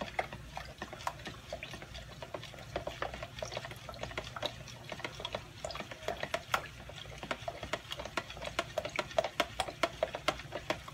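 A spoon stirring salad dressing in a plastic measuring pitcher: liquid sloshing with quick, irregular clicks of the spoon against the plastic, several a second.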